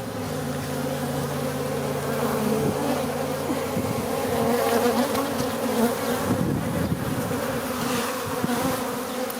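Steady buzzing of a dense crowd of honeybees flying around a hive entrance, many of them larger bees the keeper takes for drones. Now and then a single bee sweeps close past, its buzz rising and falling in pitch.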